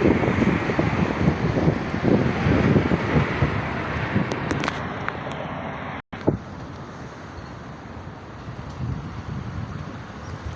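Wind buffeting a phone microphone, gusty thumps over a steady rushing noise. The sound cuts out for an instant about six seconds in, then goes on quieter.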